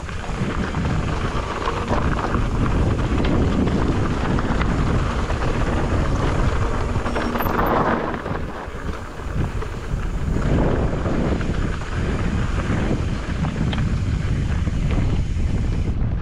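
Wind buffeting a GoPro's microphone as a mountain bike rides along a loose gravel trail, with the tyres crunching and small clicks and rattles from the bike.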